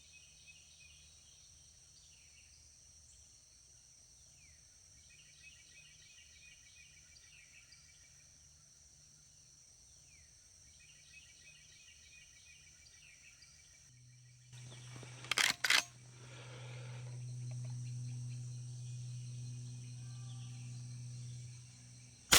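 Faint outdoor ambience of short falling bird chirps over a steady insect hiss. About fifteen seconds in there are two sharp cracks close together, followed by a low steady hum that swells and holds until near the end.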